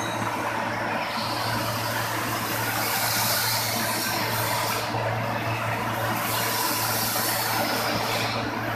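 TIG (GTAW) pipe welding: a steady hiss from the arc and shielding gas over a low, even machine hum. The hiss grows brighter about a second in, dips briefly past the middle and falls back near the end.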